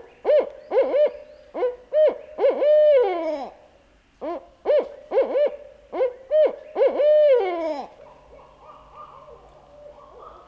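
Owl hooting: two phrases of rhythmic hoots, each ending in a long drawn-out falling note, in the pattern of a barred owl's call.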